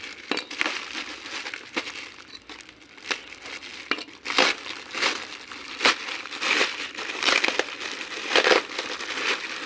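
Plastic packaging crinkling and crackling in irregular bursts as it is handled and opened by hand, busier and louder in the second half.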